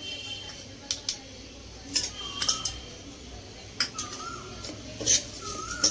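Steel spoon stirring washed rice and vegetables in a pressure cooker pot, clinking and scraping against the metal side about nine times at irregular intervals.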